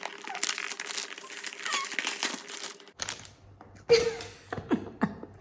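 Packaging crinkling and tearing as a perfume box is unwrapped, with a few sharp knocks and clicks near the end as the box is handled.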